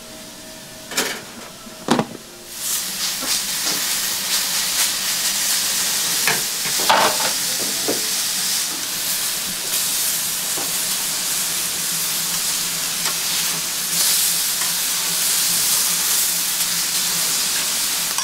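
Cubes of steak sizzling on a hot flat-top iron griddle, the sizzle setting in steadily about two and a half seconds in. A few sharp knocks come before it, and occasional clicks sound as the meat is turned with metal tongs.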